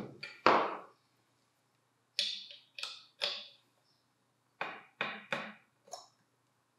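Short metallic clicks and knocks of a pin spanner engaging and turning the flange lock nut that holds the cutting wheel on an angle grinder, about eight in all, the loudest about half a second in.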